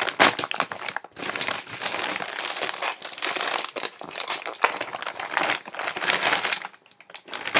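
Packaging crinkling and rustling as a mailed parcel is pulled open by hand, in a string of irregular crackly strokes that thin out near the end.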